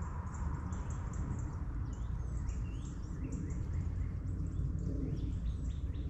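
Songbirds chirping and calling, with many quick high chirps and a few sweeping calls about two to three seconds in, over a steady low rumble of wind on the microphone.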